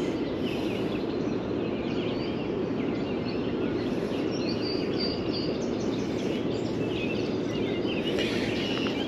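Steady rushing outdoor background noise with many birds chirping and calling throughout.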